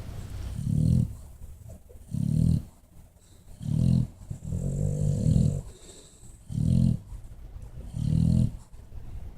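Bulldog snoring in its sleep: six low, rasping snores at an even pace of about one every one and a half seconds, the fourth one longer and rougher than the rest.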